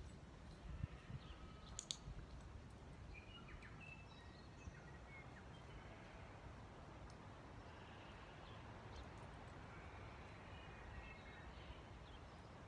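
Near silence: quiet open-air ambience with a low wind rumble and a few faint, distant bird chirps, and a single sharp click about two seconds in.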